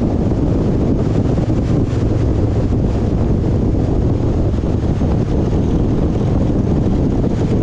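A vehicle on the move, with steady engine and road rumble and wind buffeting the microphone.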